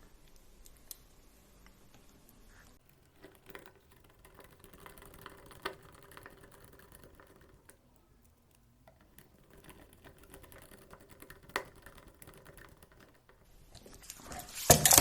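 Sparse small clicks and taps of plastic RC car suspension parts being handled and fitted together by hand, with a louder flurry of clicks near the end.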